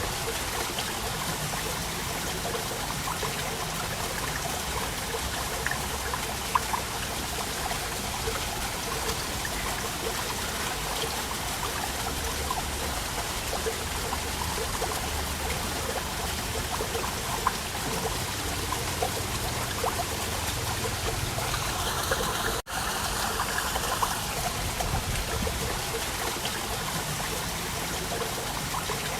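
Water of a small waterfall splashing and trickling steadily, with scattered individual splashes standing out. The sound cuts out for an instant about three-quarters of the way through.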